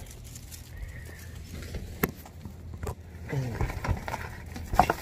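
Black plastic shopping bags full of groceries being handled, rustling, with a few sharp knocks and clicks, the loudest near the end, over a steady low hum.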